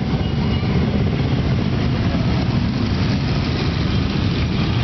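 Many motorcycle engines running as a column of bikes rides slowly past at low speed, a steady deep rumble.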